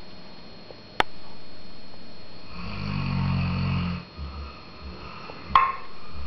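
An animal snoring: one low, drawn-out snoring breath about halfway through, lasting about a second and a half. Two sharp clicks, one before and one after it, are the loudest sounds.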